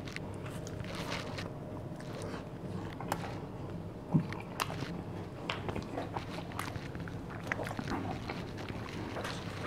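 A slice of home-baked pizza being bitten into and chewed, with scattered small crunching clicks over a steady low hum. One louder thump comes about four seconds in.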